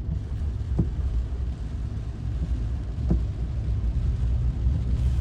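Car cabin noise while driving slowly: a steady low rumble of engine and tyres, with a faint hiss and a soft knock repeating about every two seconds.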